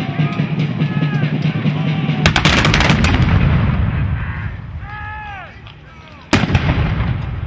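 A ragged volley of black-powder flintlock muskets firing blanks, several shots running together about two seconds in, followed near the end by one more loud single shot.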